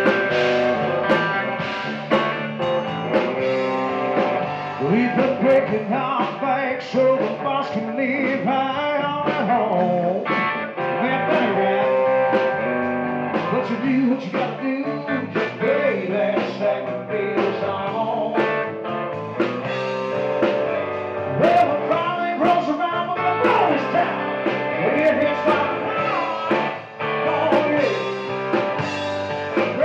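Live rock band playing: a man singing over electric guitar, bass guitar and drums.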